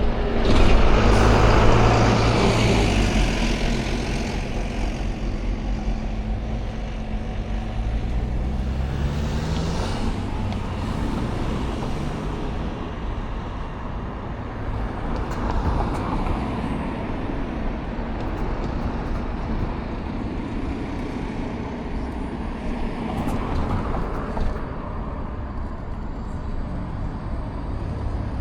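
Road traffic passing, with a loud vehicle going by in the first few seconds. An engine rises steadily in pitch as it accelerates from about six to ten seconds in, and more vehicles swell past later.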